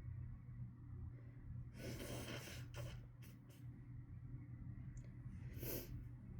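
A person breathing between chhinkni-induced sneezes: two soft, noisy breaths, about two seconds in and near the end, with a few faint clicks between them, over a steady low hum.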